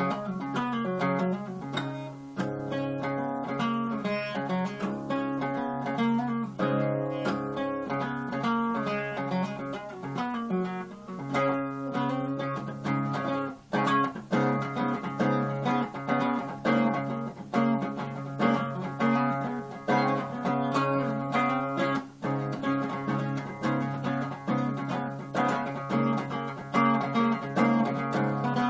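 Solo acoustic guitar playing an instrumental tune, picked and strummed, with a steady low bass note underneath.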